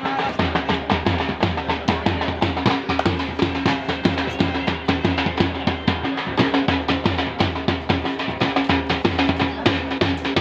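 Music with a fast, steady drum beat over a held note.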